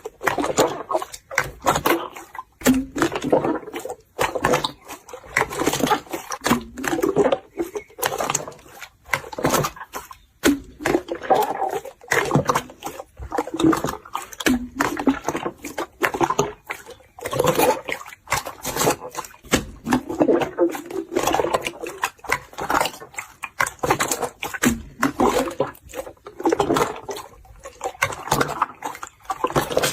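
Clear 'fake water' slime being worked by hand: a dense, irregular run of wet squelches with many small sticky pops and clicks.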